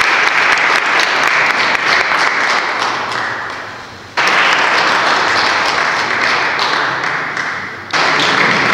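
Audience applauding, the clapping swelling suddenly and slowly dying down, then starting up again abruptly twice, about four seconds apart.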